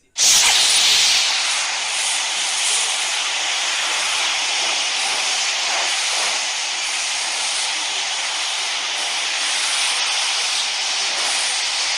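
A loud, steady hissing sound effect that starts suddenly and holds evenly, without any pitch or roar in it.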